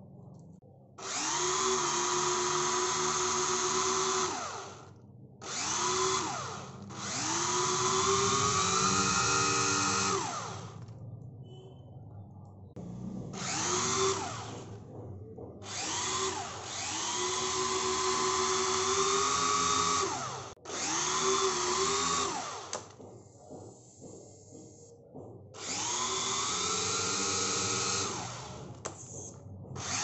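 Silverlit V-Jet Full Tilt RC plane's twin electric propeller motors revving up in about eight bursts of one to four seconds. Each burst is a whine that rises in pitch as it spins up, holds steady, then falls away as it winds down.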